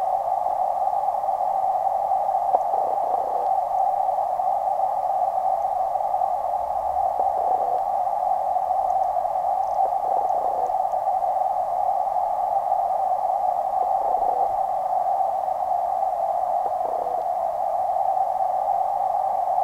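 Steady, even hiss of creek water heard through a submerged waterproof camera, held in a narrow middle pitch band, with a few faint soft knocks every few seconds.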